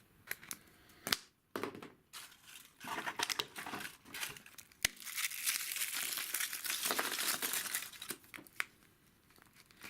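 Foil wrapper of a chocolate surprise egg being crinkled and torn off by hand: a few light clicks first, then a long spell of dense crinkling from about five seconds in to about eight.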